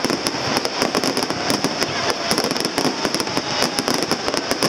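Aerial fireworks display with many shells bursting over one another: a dense, unbroken run of bangs and crackling.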